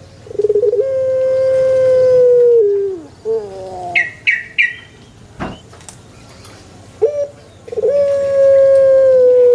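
A puter pelung, a domestic collared dove bred for its long drawn-out coo, cooing twice: each coo is held steady for about two seconds and then drops in pitch at the end. Three short high chirps come about four seconds in, between the coos.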